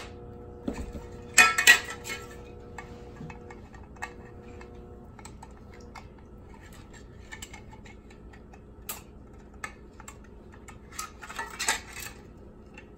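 Light metallic clinks and taps of a thin tin sardine can and coiled copper tubing being handled on a stone counter. A couple of sharper knocks come about a second and a half in, and a quick run of clinks near the end.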